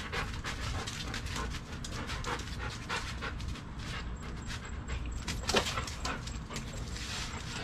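Belgian Malinois panting quickly and steadily, with one brief louder sound about five and a half seconds in.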